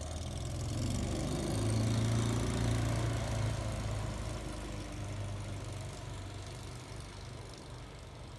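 Long-tail boat's engine running at speed as the boat passes, as a steady hum that is loudest about two seconds in and then slowly fades.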